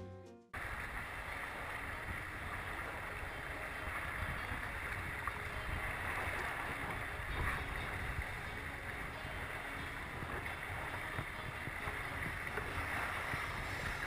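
Water rushing and splashing along the hull of a 1980 Bénéteau First 27 sailboat under sail, with wind on the microphone. A steady rush starts suddenly about half a second in, after a brief silence.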